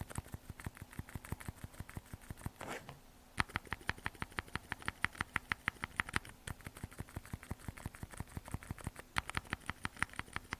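Silent mechanical keyboard switches, JKDK Jingwan V2 and JJ, pressed rapidly to bottom out: a quick train of muffled key clicks, several a second. It breaks off briefly about three seconds in, and the second run is louder.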